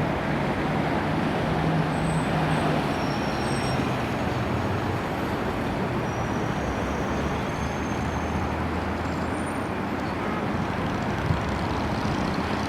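Steady jet engine noise from an Airbus A320-232's two IAE V2500 turbofans, a low drone that slowly settles.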